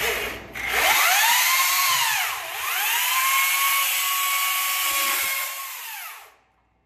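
Chainsaw revved twice with no cutting: a high whine climbs, sags briefly, then climbs again and holds high for about three seconds before falling away.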